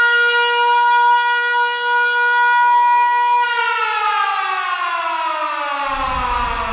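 Siren-like sound effect: one loud, rich tone held steady for about three and a half seconds, then winding down smoothly in pitch. A low rumble comes in near the end.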